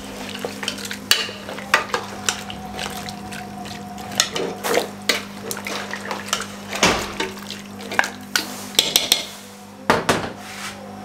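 A long metal spoon clinking and scraping against the inside of a metal pressure cooker while stirring chunks of beef, tomatoes and water, in irregular knocks and scrapes.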